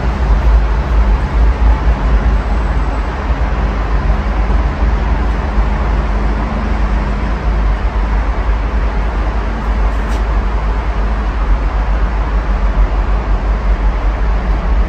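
Steady road traffic from a multilane road below: a continuous wash of cars passing, with a deep rumble underneath. A faint click about ten seconds in.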